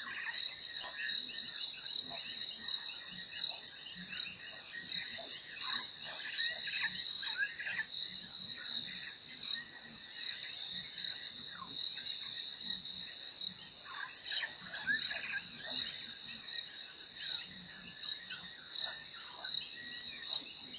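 Night chorus of frogs and insects: a loud, high-pitched trill that repeats about once a second, with scattered lower chirps and croaks beneath it.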